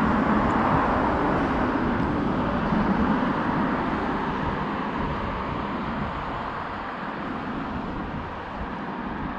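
Steady road traffic noise, a continuous hum of passing vehicles that swells slightly early on and eases off later.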